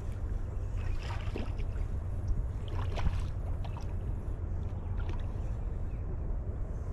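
Steady low rumble of wind buffeting the microphone, with a few faint clicks scattered through it.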